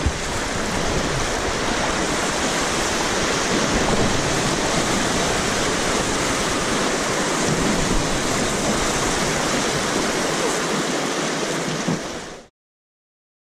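Whitewater rapid rushing steadily and loudly, heard close up from a packraft running down through it; the sound cuts off suddenly near the end.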